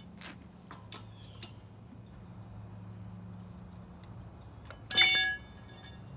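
A few light metal clicks, then about five seconds in a loud metallic clank that rings briefly: a steel lug wrench striking the lug nuts or wheel while the nuts are being worked by hand.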